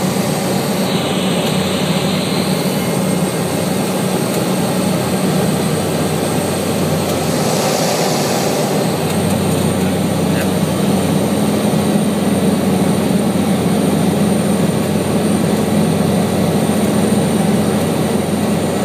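Steady drone of a propeller aircraft's engines and propellers, heard from inside the cabin: a constant low hum with a thin high whine over it, unchanging throughout.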